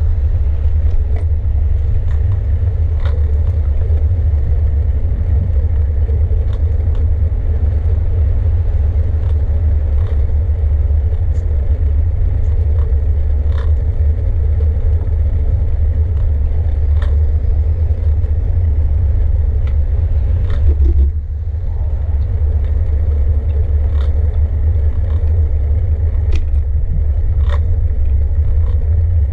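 Steady low rumble of riding a bicycle through city streets, with scattered small clicks and rattles. The rumble eases briefly about two-thirds of the way through.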